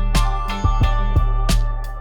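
Background music with a steady beat over a sustained bass.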